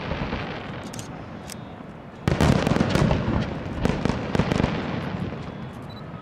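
Aerial firework shells bursting: the rumble of one burst dies away, then a sudden loud boom about two seconds in, followed by crackling that slowly fades.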